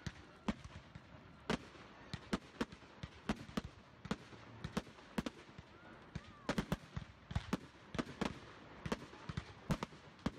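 Fireworks going off: many sharp bangs at uneven intervals, a few every second, some close together, over a low background hiss.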